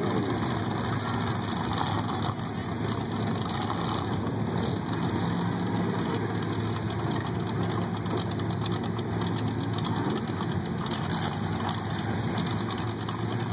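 A lifted square-body pickup truck's engine idling steadily with a low, even hum.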